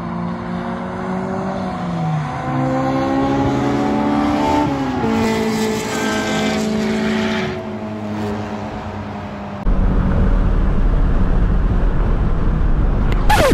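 A 2020 Ford Mustang EcoBoost with the High Performance Pack running on a race track, heard from trackside, its engine note rising and dropping in steps as it drives past. About ten seconds in, this gives way to the louder, dense low rumble of engine and road noise heard inside the car's cabin, with a sharp hit near the end.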